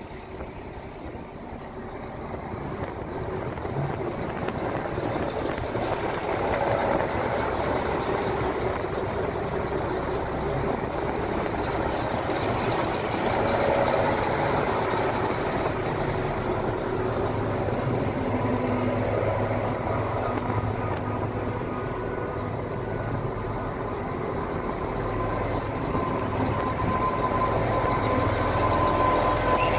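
JR Hokkaido KiHa 261 series diesel railcar train pulling slowly into the platform, its diesel engines running and wheels rolling, growing louder over the first few seconds as the cars pass. A steady whine comes in near the end as it slows.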